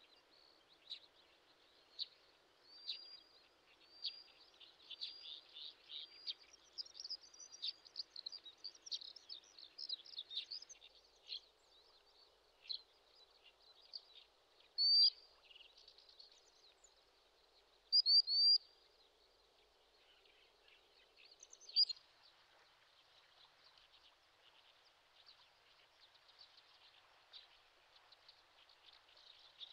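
Birds chirping: many short, high calls in quick runs, busiest in the first ten seconds, with a few louder calls around the middle, over a faint steady background hiss.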